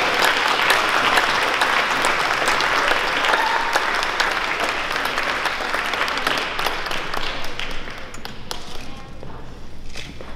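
Audience applauding, a dense patter of clapping that thins and dies away over the last couple of seconds.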